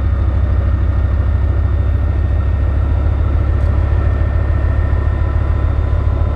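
Bergepanzer 2 armoured recovery vehicle's V10 multi-fuel diesel engine running steadily, a deep, even rumble with a fast pulse.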